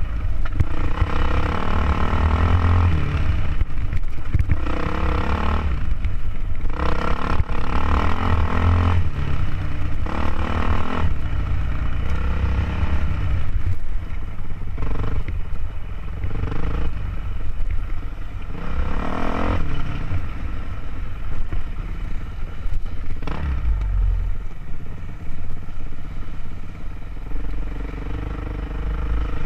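Dirt bike engine revving up and falling off again and again as it is ridden hard over rough ground, with heavy wind rumble on the microphone.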